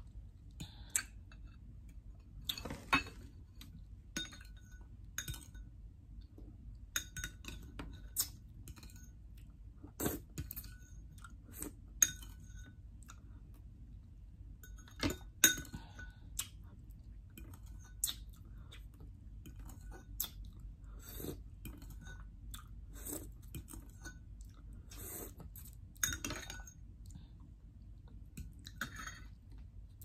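Close-up chewing of kiwi fruit, mixed with a metal spoon clinking against a glass bowl several times, the loudest clinks a little under halfway through.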